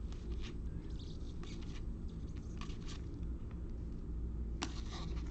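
Trading cards being handled and turned over one by one, a scatter of light clicks and brushing slides, the sharpest near the end. A steady low hum runs underneath.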